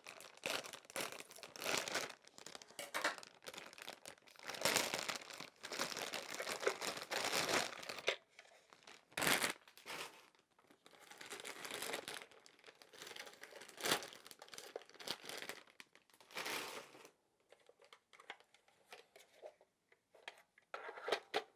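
Plastic toy packaging crinkling and crackling in irregular bursts as it is cut open with scissors and pulled apart, with a few sharp clicks and snaps among the rustling.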